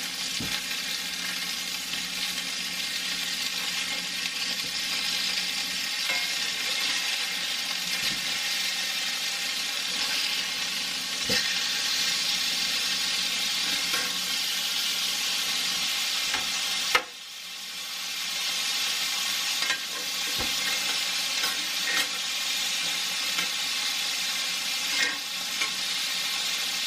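Hamburger patties frying with a steady sizzle, a few light clicks over it. One sharp knock comes past the middle, and the sizzle briefly dips after it before building back up.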